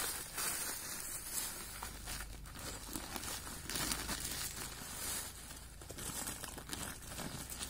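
Woven plastic feed sacks and a plastic sheet crinkling and rustling as they are handled and emptied.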